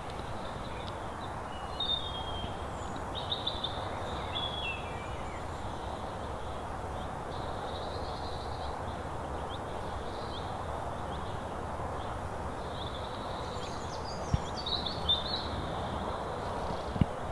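Small birds chirping and calling in two spells over a steady rushing outdoor noise, with a few short sharp knocks near the end.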